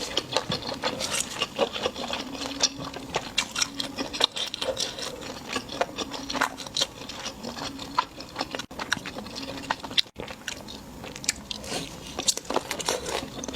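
Close-miked eating: crunchy bites and chewing, a dense run of irregular crackles.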